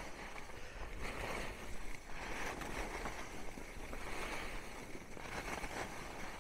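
Skis hissing over packed, groomed snow through a run of turns, swelling and fading about every second and a half, with wind rumbling on the microphone.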